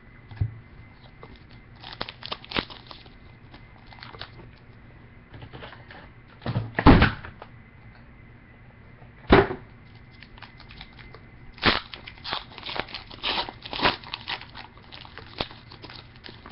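Trading cards and packs being handled: a scatter of short clicks and rustles, with two louder knocks about seven and nine seconds in and a busier run of clicks near the end.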